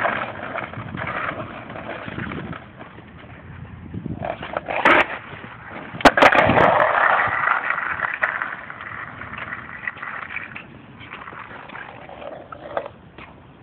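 Skateboard rolling, its wheels making a rough rolling noise that comes and goes, with sharp clacks about five and six seconds in.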